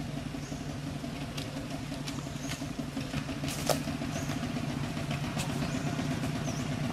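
A motor engine idling steadily, a low even drone, with one sharp click a little past halfway.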